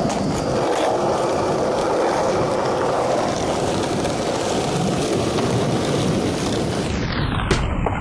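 Skateboard wheels rolling over smooth pavement: a steady, loud rolling roar. Near the end the hiss thins out and a couple of sharp knocks come in.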